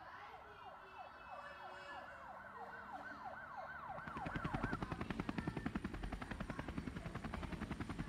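Emergency siren sound effect wailing up and down about three times a second. About four seconds in it gives way to the louder, rapid chop of a helicopter's rotor blades.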